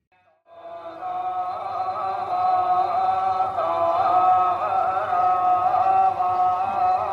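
Music with a held, chant-like drone that fades in about half a second in and then goes on steadily.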